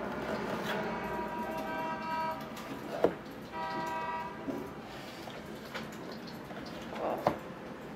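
A cardboard box handled and turned over on a tabletop, with two sharp knocks as it is set down. Two steady horn toots, each under a second long, sound in the background in the first half.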